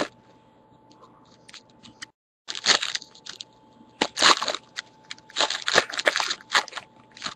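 Trading-card packaging crinkling and crunching as it is handled, in several bursts, the first about two and a half seconds in, with short quiet gaps between.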